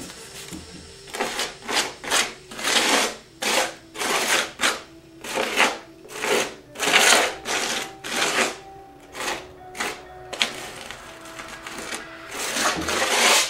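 Metal putty knife scraping across a gritty layer of texture paste on a canvas, in short repeated strokes about two a second.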